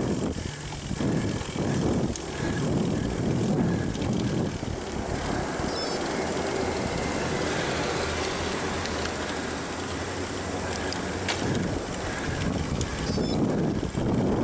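Bicycle riding up a mountain road, with wind and road noise. A motor vehicle passes in the middle, its noise swelling and then fading over several seconds.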